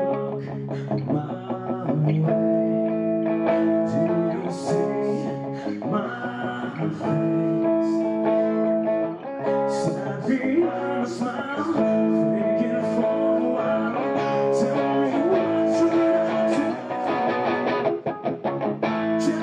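Live rock song played on a single electric guitar, strummed and picked, with a man singing long held notes into a microphone.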